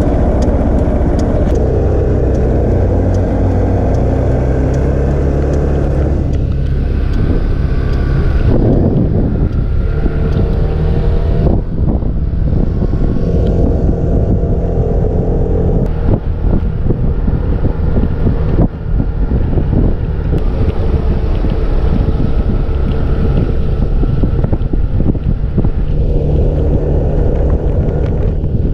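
Motor scooter engine running while riding, its pitch rising and falling as the scooter speeds up and slows, with wind buffeting the handlebar-mounted camera's microphone.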